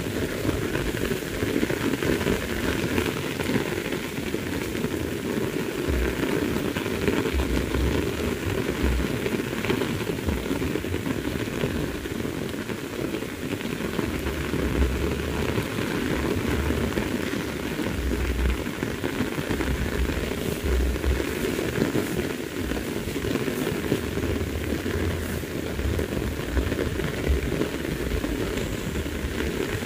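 Heavy rain falling steadily, a dense crackling patter, with a low rumble underneath at times.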